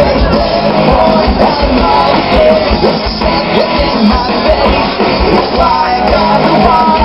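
Pop-punk band playing live through a festival PA, heard loud from within the crowd: distorted electric guitars, bass and drums driving a fast rock song.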